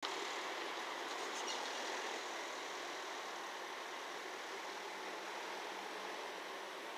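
Steady distant outdoor rumble of an approaching KiHa 40-series diesel railcar (KiRo 47 pair), still far off, its low engine hum only faintly emerging in the second half over the general background noise.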